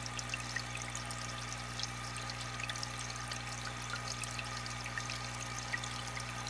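Aquarium water trickling and bubbling steadily, full of small droplet pops, over a steady low hum.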